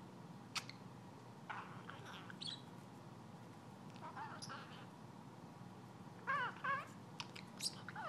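Budgerigar giving scattered short chirps, then a brief wavering warble of chatter about six seconds in, with a few sharp clicks between the calls.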